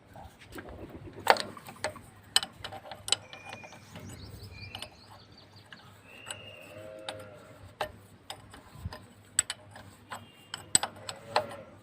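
Scattered metallic clicks and knocks of a spanner working a nut on an engine's fuel pump, loosening it to bleed air from the pump, with a few short squeaks.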